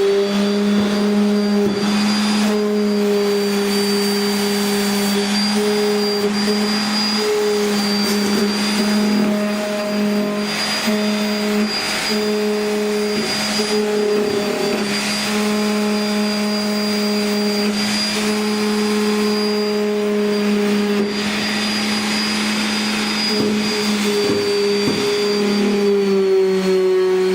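A power tool's electric motor running steadily, with a strong hum and a thin high whine. Short rough patches of noise recur every second or two over it.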